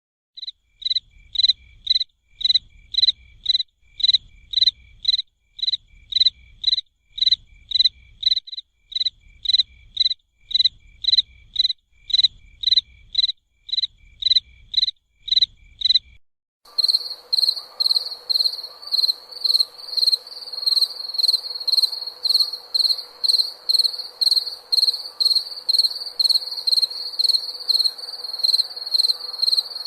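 Crickets chirping in a steady rhythm, about two chirps a second. About sixteen seconds in, the sound switches abruptly to faster, higher chirping, about three a second, over a faint background hiss and a low steady hum.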